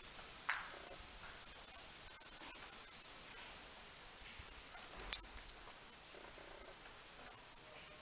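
A steady, high-pitched insect chorus, crickets or similar, trilling without pause except for a brief break about three and a half seconds in. There is one short click about five seconds in.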